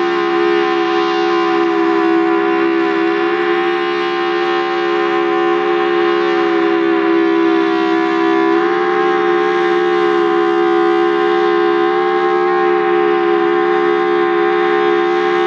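Federal Signal Thunderbolt 1003 civil-defense siren sounding a steady, loud, bassy alert tone, a chord of held pitches that shifts slightly about halfway through. A second siren, a T-128, sounds along with it farther off.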